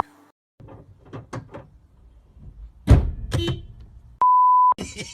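A few short knocks and clatters, then a heavy thud about three seconds in, followed by a flat half-second censor bleep.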